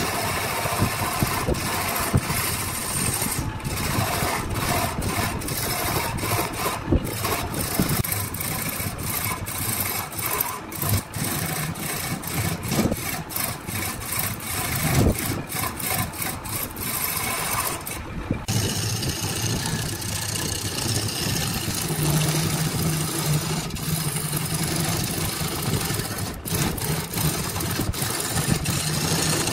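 Woodworking machinery running: a steady motor hum with cutting noise, changing abruptly several times in the first half.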